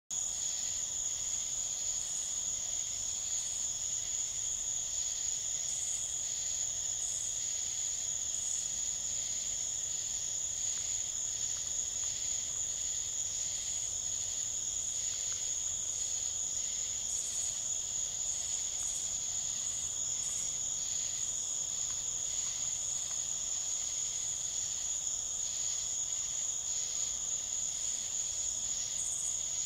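Steady chorus of night insects: a continuous high-pitched trill with a fainter lower band beneath and short chirps repeating above it, starting abruptly.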